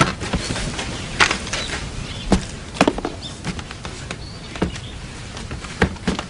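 Irregular sharp knocks and taps, about one a second, from people moving and stepping on a wooden floor.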